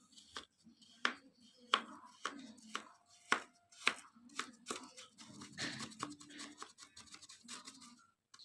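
Kinetic sand being cut and worked by hand: a series of sharp cutting sounds about every half second, turning into a denser, continuous crumbling rustle from about five seconds in.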